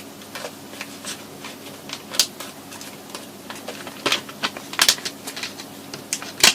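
Plastic blister packaging being cut open and handled, giving irregular crackles and sharp clicks.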